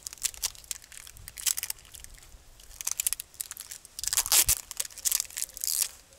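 Adhesive tape being pulled off its roll in several short pulls and wound around two crossed wooden sticks to bind them together.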